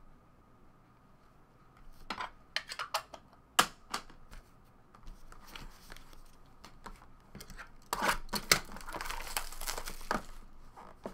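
Trading-card box and foil pack wrappers being handled: scattered crinkles and clicks, one sharp click about three and a half seconds in, then a longer stretch of crinkling and tearing about eight seconds in.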